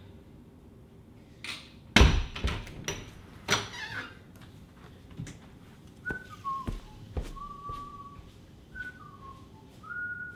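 Clatter of a door latch and several sharp knocks about two seconds in as a door is opened. Then a person whistles a few short notes that slide down and back up in pitch.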